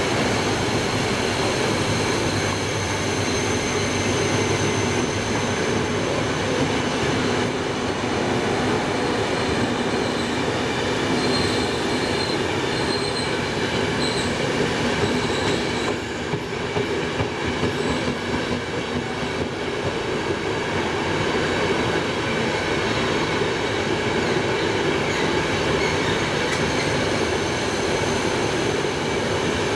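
Italian passenger and couchette coaches rolling steadily through a station, a continuous rumble of wheels on rail with thin high wheel squeal over it.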